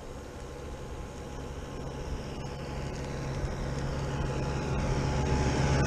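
A tractor approaching from behind, its engine growing steadily louder as it nears.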